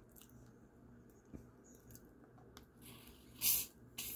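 Faint room tone, then close-up eating: a bite into food held in the hands, with a short, sharp noise about three and a half seconds in and a briefer one just before the end.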